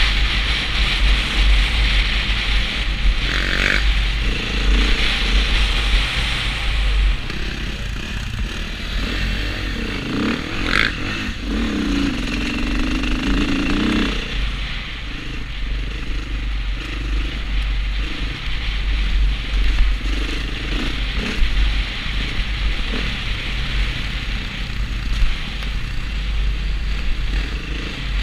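Dirt bike engine running and changing revs as it is ridden along a rough track, under heavy wind rumble on a helmet-mounted microphone.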